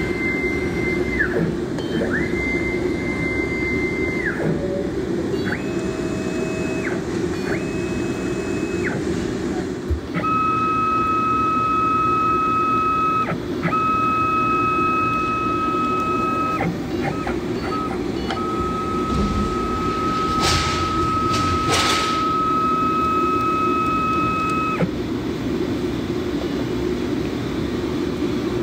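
Industrial machine running with a steady hum, its motors whining as they ramp up, hold speed for one to several seconds and ramp down again, about eight times. There are two short hissing bursts a little after the middle.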